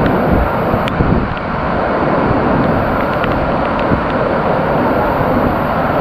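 Steady, loud rush of water from a waterfall and stream, with a few faint clicks.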